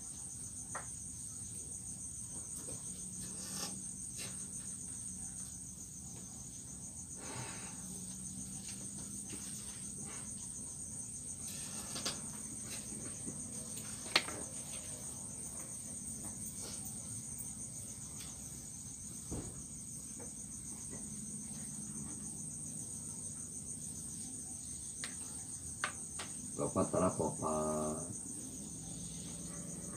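Crickets chirring in a steady, high-pitched trill that never lets up, over a faint low hum. A few soft clicks, and a brief murmur of a voice near the end.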